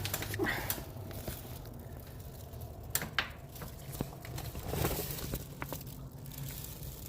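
Scattered light clicks and knocks of handling, over a faint steady low hum.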